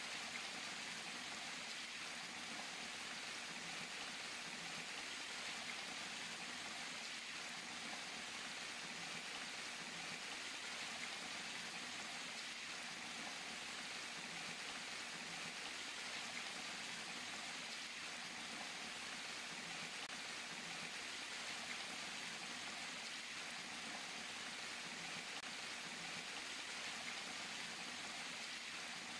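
Falling water splashing in a steady, even rush.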